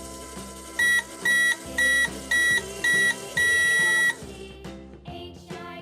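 Microwave timer beeping over background music: five short, high beeps about two a second, then one longer beep, signalling the cycle is done.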